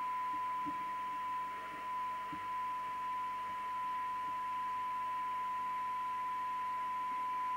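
Audioline PT340 CB radio receiving a weak test signal: a steady 1 kHz test tone over a hiss of receiver noise, while its receive coils are being tuned during alignment.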